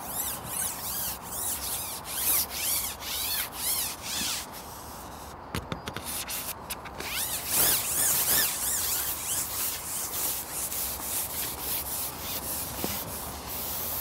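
Long carbon fishing pole (Cadence CP2000) being shipped out, rubbing and sliding through the hands and over its support in a series of repeated strokes, with a short lull and a few light clicks about halfway.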